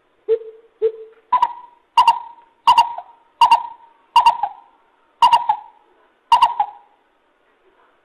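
Greater coucal hooting: two lower hoots, then a run of seven higher hoots about two-thirds of a second apart, spaced a little further apart near the end.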